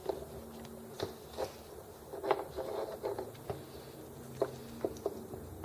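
Hands working on small parts of a model engine: scattered clicks, taps and light knocks, with a brief cluster of louder knocks a little over two seconds in.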